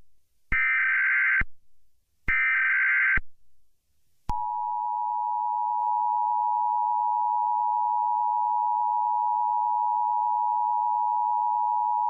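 Emergency Alert System tones: two buzzy, rapid data bursts of the SAME header, each about a second long, then about four seconds in the steady two-tone EAS attention signal starts and holds.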